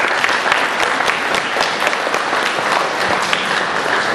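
An audience applauding in a hall: dense, steady clapping that bursts in right after a recited poem ends.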